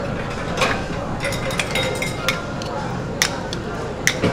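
Metal spades scraping and clinking on a frozen granite slab as ice cream with chocolate mix-ins is chopped and folded into it, with sharp, irregular clinks about every half second to second.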